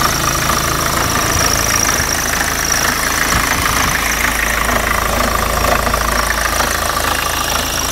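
BMW E36 318tds four-cylinder turbodiesel engine running steadily with a strange repeating noise, whose rate the owner says does not match the engine speed and seems to be about half of it.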